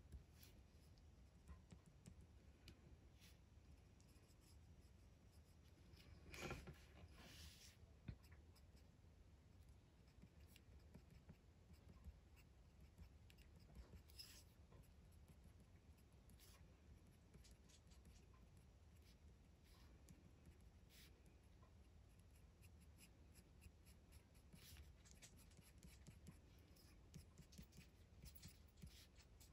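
Faint scratching of a colored pencil drawing short strokes on textured paper, with a few louder scrapes, the loudest about six seconds in.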